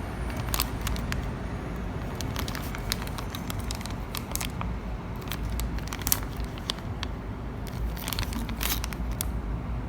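Packaging being handled, crinkling and crackling with many scattered light clicks, over a steady low rumble.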